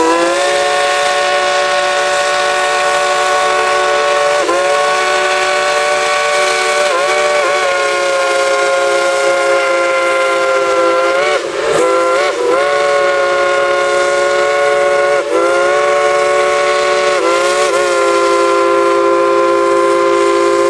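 Coal-fired steam locomotive's whistle played as a tune: a loud chord of several notes held long over a steam hiss. Several times the notes dip and swoop briefly as the cord is eased and pulled again.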